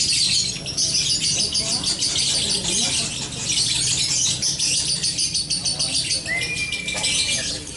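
Many caged songbirds singing and chirping together, fast and dense, with a long steady high note near the end.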